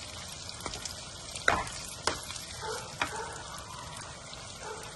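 Tomato and onion chunks sizzling in butter in a frying pan as a utensil stirs them, with a few sharp knocks of the utensil against the pan, the loudest about one and a half seconds in.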